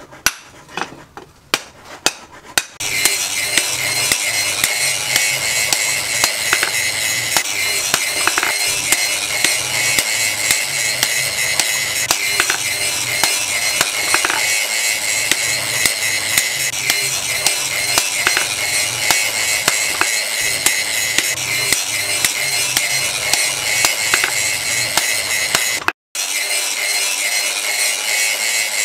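Hammer blows ringing on hot leaf-spring steel as an axe is forged over a post anvil: a few separate strikes, then many irregular sharp strikes over a steady high hiss.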